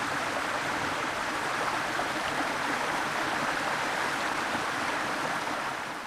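Steady rush of falling water from a waterfall, easing off near the end.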